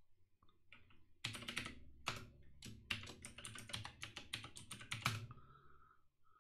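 Computer keyboard typing: a quick run of about fifteen keystrokes, starting just over a second in and stopping about five seconds in, as a username and password are entered.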